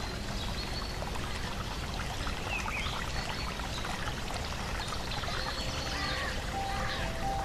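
Trickling, running water with short bird chirps now and then. A few held musical notes come in near the end.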